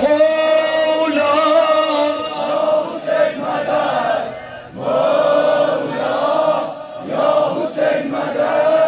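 A crowd of men chanting a Shia mourning lament for Hüseyin in unison, in about four long held phrases that swell and fade.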